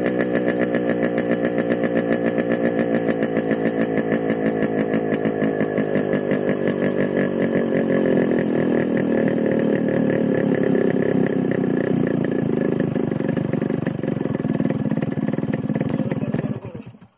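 Yamaha RX 100's single-cylinder two-stroke engine running at high revs, heard at the silencer outlet. The note wobbles quickly and regularly at first, turns fuller and steadier about halfway through, and cuts off suddenly near the end.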